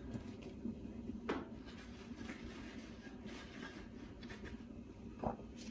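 Quiet room tone with two faint knocks, about a second in and again near the end.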